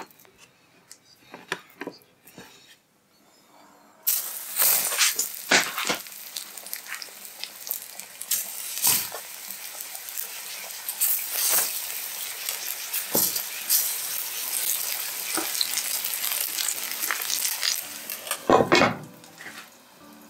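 Meat-stuffed eggplant and sweet potato stacks frying in oil in a nonstick frying pan. After a few faint handling taps, a steady sizzle starts suddenly about four seconds in, dotted with pops and spatters. Near the end a glass lid clatters onto the pan and the sizzle drops away.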